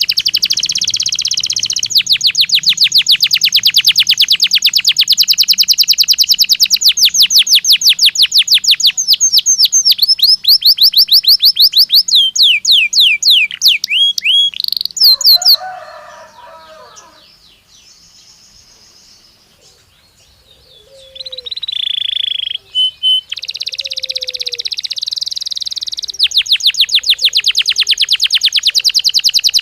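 Domestic canary singing: long runs of fast repeated trilled notes that change speed and pitch from phrase to phrase, with a pause of a few seconds past the middle before the trilling starts again.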